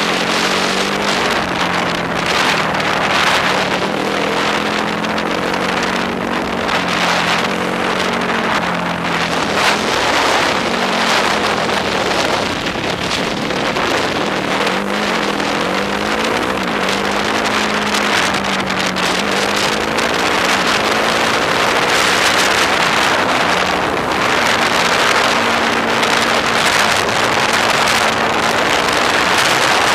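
Yamaha YFZ sport quad's engine running under way, its pitch rising and falling again and again as the throttle is worked, with wind rushing over the helmet camera's microphone.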